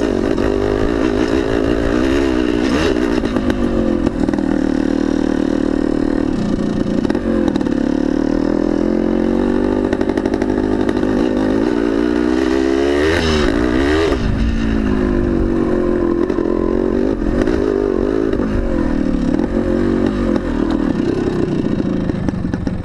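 1975 Yamaha DT400B's single-cylinder two-stroke engine running under load off-road, its pitch rising and falling with the throttle, with a quick rev about thirteen seconds in.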